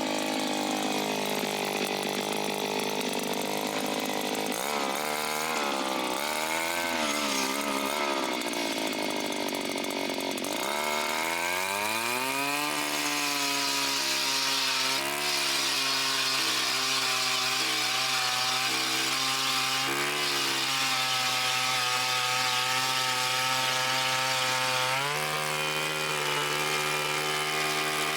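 Powered ice auger's small engine drilling a hole through lake ice. The revs waver and dip for the first several seconds, climb about twelve seconds in and hold high and steady, rise again briefly near the end, then drop away.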